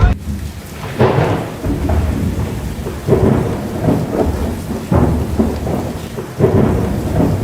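Thunderstorm sound effect: rain and rolling thunder, with loud surges every second or two that die away.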